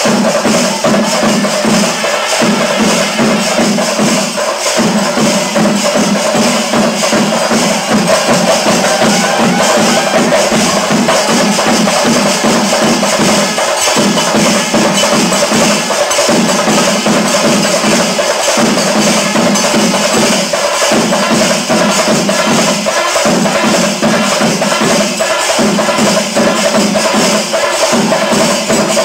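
Music with a steady percussion beat, likely a soundtrack laid over the footage.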